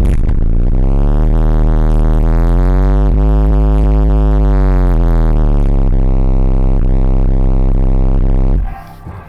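Inverted subwoofer playing a very loud, heavily distorted bass track with gliding tones. It cuts out abruptly near the end as the amplifier goes into protect mode.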